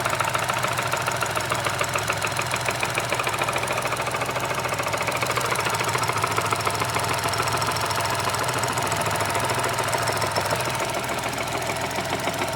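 Mini F56's B38 three-cylinder engine running with a steady, rapid rattling and knocking from the engine, caused by a failed accessory-belt tensioner.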